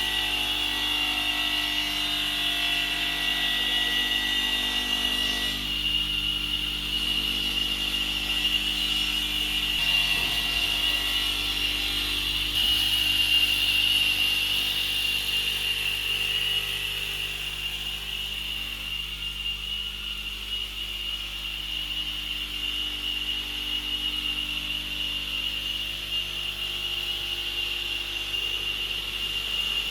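CNC router running and cutting, a steady high spindle whine over a constant machine hum, swelling briefly about midway and settling a little quieter afterwards.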